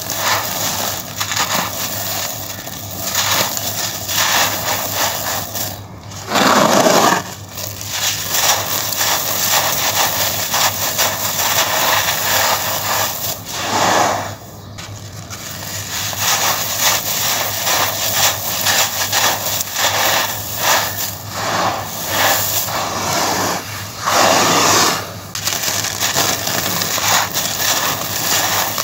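Hands crushing molded blocks of dry coarse sand and letting the grains pour and trickle down: continuous gritty crunching and rustling, with three louder crunches spread through it.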